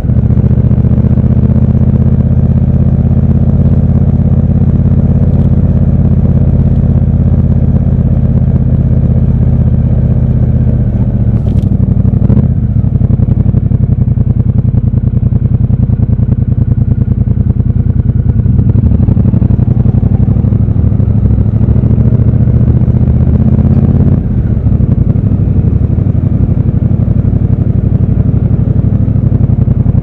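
Triumph Bobber's 1200 cc parallel-twin engine running at low revs in slow traffic, a steady low beat recorded raw from the bike. About eleven and a half seconds in there is a short click, after which the engine note turns rougher and more uneven.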